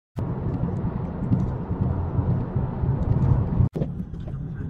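Low, steady rumble of road and engine noise inside a moving car. It drops out sharply for an instant about three and a half seconds in, then carries on somewhat quieter.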